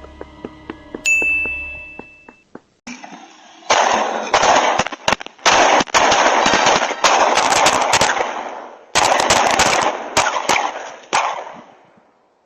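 A short high electronic beep, then about eight seconds of loud, rapid cracks and bangs over a harsh, distorted noise.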